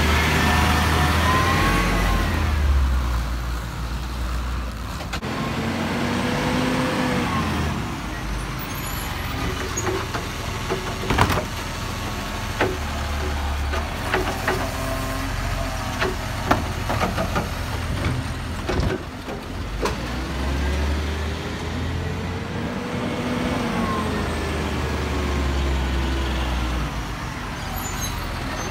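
Hino 500 side-loading garbage truck working a kerbside bin pickup. Its engine and hydraulics rise and fall in pitch as the arm lifts a wheelie bin, and again near the end. In between, the tipped bin knocks and clatters several times as it is emptied into the hopper.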